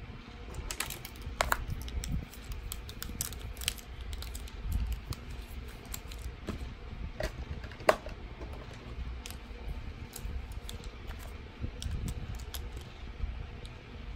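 Plastic highlighter pens clicking and clattering against each other as they are handled: a scattering of light, irregular clicks over a low handling rumble, the sharpest click about eight seconds in.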